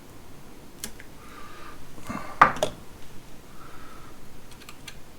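Small clicks and taps of hand tools and wire on a wall switch as a wire end is bent into a loop and hooked under a terminal screw. The sharpest click comes about two and a half seconds in, with a few quick light ticks near the end.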